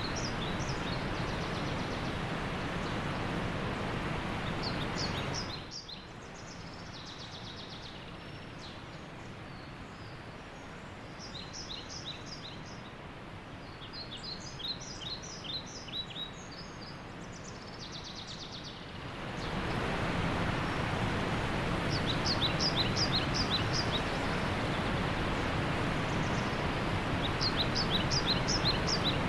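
Steady rushing of a waterfall, with a bird repeating short series of high chirps over it. The rushing drops suddenly to a quieter level about six seconds in and returns to full strength around twenty seconds in.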